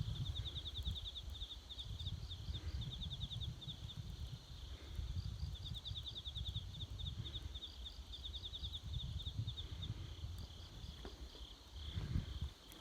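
Insects chirping in rapid pulsed trills that start and stop every second or two, over a steady low rumble.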